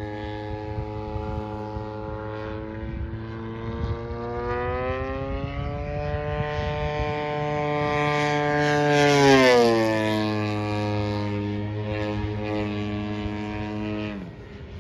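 Electric motor and propeller of a 6S-powered E-flite T-28 RC airplane making a fly-by pass. The whine climbs slowly in pitch and grows louder as the plane approaches, peaks about nine seconds in, then drops sharply in pitch as it passes, and falls again near the end as the throttle comes back.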